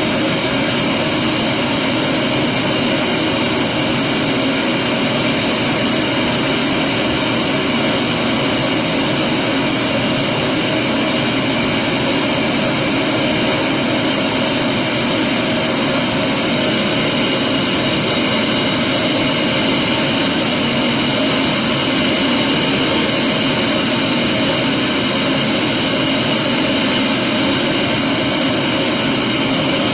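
Vacuum cleaner running steadily and loudly, an even whooshing noise with a constant motor whine.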